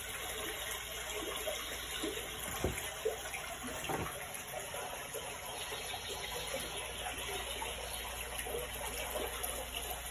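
Steady rush of running water with small gurgles and trickles throughout, and two soft knocks about two and a half and four seconds in.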